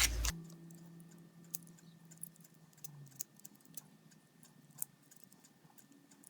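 A power tool running a bristle disc cuts off shortly after the start, and a low hum dies away over about three seconds as it spins down. Scattered faint light clicks and ticks of small parts being handled follow.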